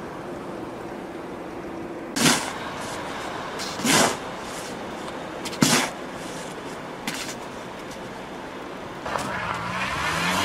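Steady wind, then three sharp scrapes about two seconds apart: a shovel digging packed snow from around a stuck car's front wheel. Near the end a car's engine revs and its tyres spin in deep snow with a wavering whine that rises.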